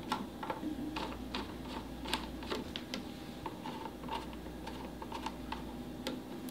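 Light, irregular clicks, about two or three a second, as a jam bolt is turned by hand to lock the micrometer adjustment plate on the bearing frame of a Flowserve Durco ANSI 3A pump.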